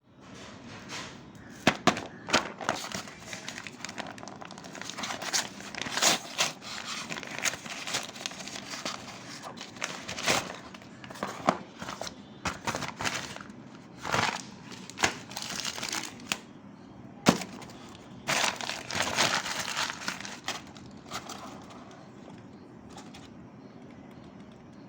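Retail packaging being opened and handled: plastic and cardboard crinkling and rustling, with many sharp clicks and knocks at irregular intervals, thinning out over the last few seconds.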